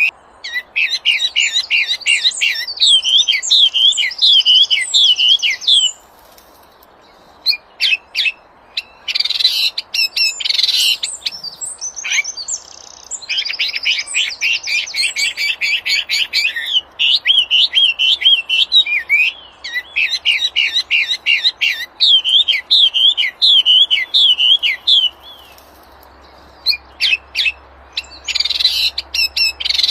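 Wambi, a small Indonesian songbird, singing vigorously: fast strings of high chirping notes and trills in repeated phrases. It breaks off briefly about six seconds in and again near the end.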